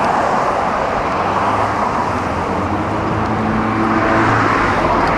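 Steady street traffic noise, with a vehicle engine hum that swells a little about three to four seconds in.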